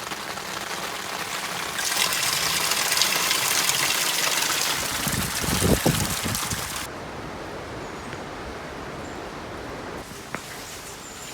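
Water from a rainwater tank's pipe gushing onto a small water wheel, filling its buckets. The rush swells loud for several seconds with a few heavier splashes, then drops suddenly about seven seconds in to a quieter steady pour.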